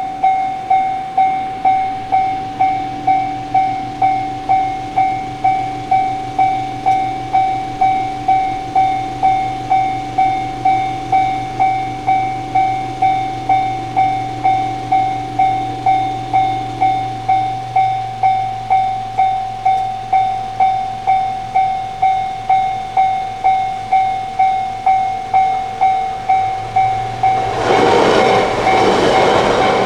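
Japanese railway level-crossing alarm ringing steadily, a single electronic bell tone struck about one and a half times a second. About 28 s in, a train reaches the crossing and its loud passing rush of wheels on rail rises over the bell.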